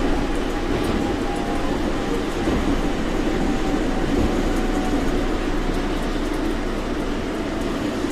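Osaka Monorail straddle-beam train running at speed, heard from inside the front of the car: a steady rumble of its rubber tyres on the concrete guideway beam, with a faint whine.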